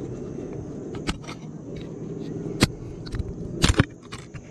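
A few sharp knocks and clicks of gear being handled against a plastic kayak and its chest-mounted camera, the loudest a close pair near the end, over a steady low rumble.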